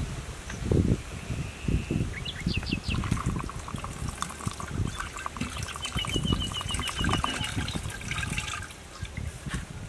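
Water poured from a bamboo tube into a large cooking pot, a splashing trickle that runs from about three seconds in and stops near the end. A few low thumps near the start, and birds chirping over it.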